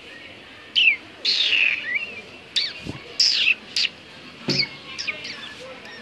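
Rose-ringed parakeet calling: about six or seven loud, shrill calls in quick succession, each sweeping downward in pitch, some short and some drawn out.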